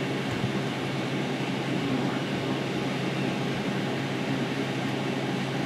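Steady low hum under an even hiss, unchanging, with no distinct events.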